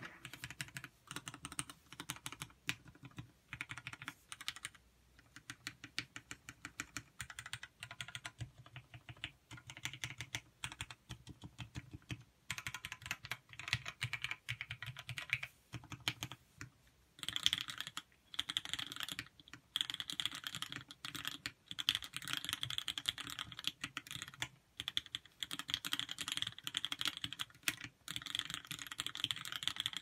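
Typing on a custom mechanical keyboard with a carbon steel case and vintage black switches: a dense clatter of keystrokes, broken by a few short pauses, and brighter and harder in the second half.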